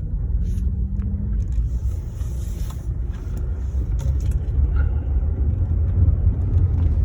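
2009 Pontiac G6 driving, a steady low rumble of engine and road heard from inside the cabin, getting a little louder in the second half.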